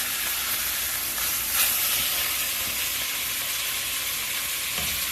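Salmon fillets sizzling steadily in a frying pan, freshly turned over to cook the second side.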